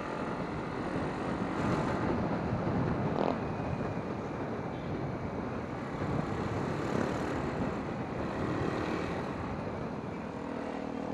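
A motorcycle under way: steady wind rush and road noise on the rider's microphone.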